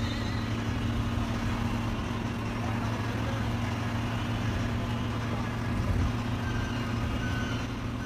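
Coach bus at highway speed heard from inside its front cabin: the engine's steady low drone with road and wind noise, without a break.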